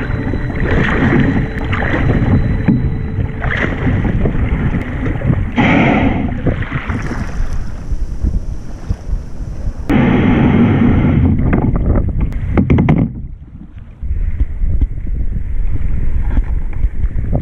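Wind buffeting a kayak-mounted camera's microphone, with water sloshing and splashing against the kayak's bow as it is paddled into the shallows. After a brief drop about three-quarters of the way through, only a steady wind rumble remains.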